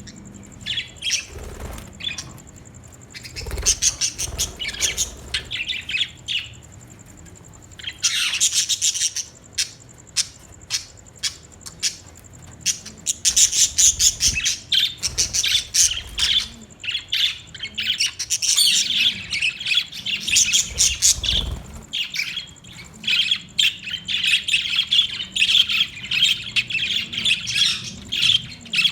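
Budgerigars chattering: rapid runs of short, high chirps and squawks, nearly continuous and busiest in the second half.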